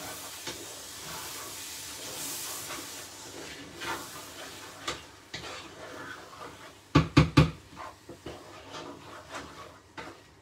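Chili con carne of mince, chopped tomatoes and kidney beans bubbling and hissing in a saucepan while a wooden spoon stirs it, scraping and clicking against the pan. About seven seconds in come three or four loud knocks close together.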